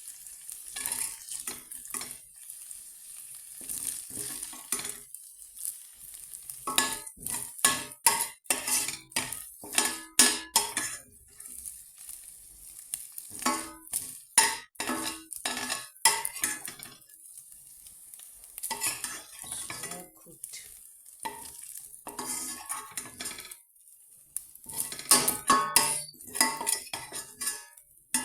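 A cooking utensil scraping and clinking against a frying pan in repeated clusters as diced bacon is lifted out, over a faint steady sizzle of the hot bacon fat.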